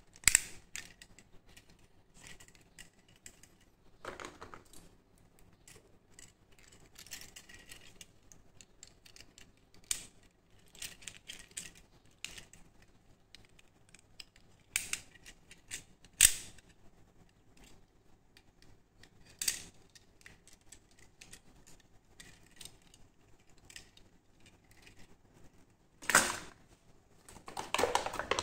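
Toy handcuffs worked by hand: scattered sharp clicks of the ratchet jaw and short rattles of the chain, with a denser clatter near the end.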